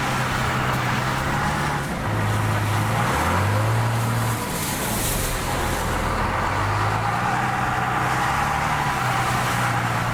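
Truck engine running under load as the truck struggles for traction in mud without breaking through it; the engine pitch shifts and climbs briefly about three seconds in, over a steady rushing noise.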